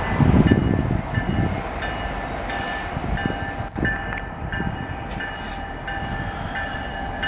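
Canadian National freight train's diesel locomotives rumbling as the train approaches slowly, with a bell ringing evenly about three times every two seconds.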